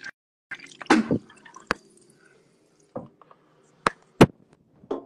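Wet dripping and splashing at a bathroom sink while a man brushes his teeth, with a splashy burst about a second in and a few sharp taps later on.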